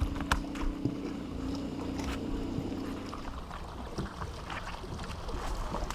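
A boat's motor hums steadily on the water and fades out about three and a half seconds in, with a few light knocks on the hull and water noise around it.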